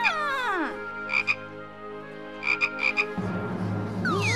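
Cartoon frog croaking sound effect: short croaks in quick groups of two or three, with a falling pitched swoop at the start. About three seconds in, a noisy background with a low hum comes in.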